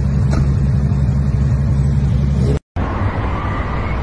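A car engine running at a steady idle with a deep, even rumble. About two and a half seconds in it cuts off abruptly, and after a brief gap comes the steadier road noise of a car driving on a highway.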